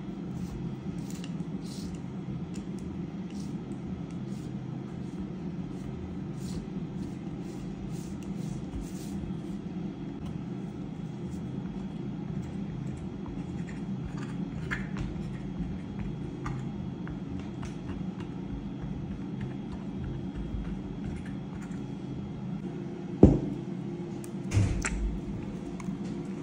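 Kitchen food preparation over a steady low hum: faint light clicks and taps as fingers crimp puff pastry and a fork pricks it in a glass tart dish. Two sharp knocks come near the end, a second and a half apart, the first the loudest.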